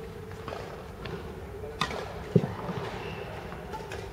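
Badminton rally: a sharp crack of a racket striking the shuttlecock a little under two seconds in, then a heavier thud of a foot landing on the court floor, over a steady hum.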